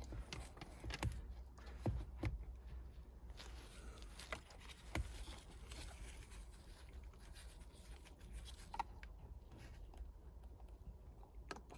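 Faint, scattered small clicks and scrapes of hands working at the clips of the airbag's yellow plastic connector to unplug it.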